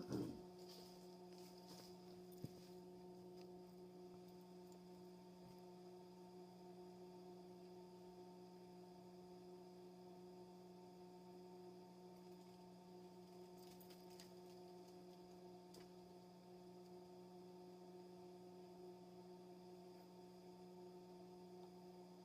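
Near silence with a faint steady electrical hum, and a brief knock at the start and a small click about two and a half seconds in.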